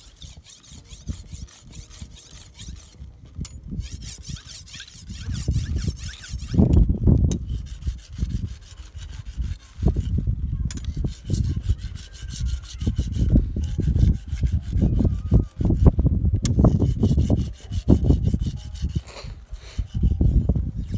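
A machete blade scraped back and forth across a stone in repeated strokes: the blade being sharpened on a rock.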